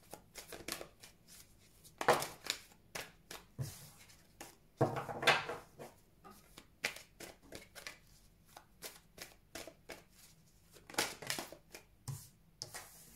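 A tarot deck being shuffled by hand: a run of quick card rustles and slaps, with louder bursts about two, five and eleven seconds in.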